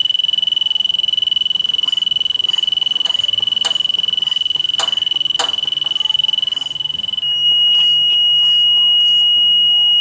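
Fieldpiece SCM3 carbon monoxide detector's high-pitched alarm sounding, a rapid beeping that turns to a continuous tone about seven seconds in, set off by a very high CO reading from a gas burner with its primary air closed. A few faint clicks come from handling the sampling bulb.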